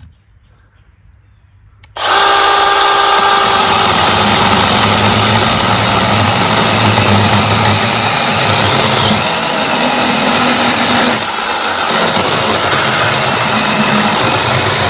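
NaTiddy 21 V brushless battery mini chainsaw starting up suddenly about two seconds in and cutting through a small log, sawing off a wood disc. It runs loud and steady for the rest, with a brief dip about eleven seconds in.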